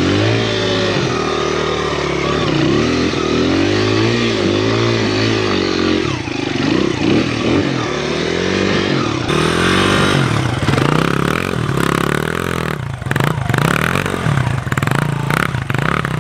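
Honda XR100 dirt bike's single-cylinder four-stroke engine revving up and down again and again as the rider works to climb a steep, slippery snow-covered hill. From about nine seconds in the revs turn choppier, with clattering knocks.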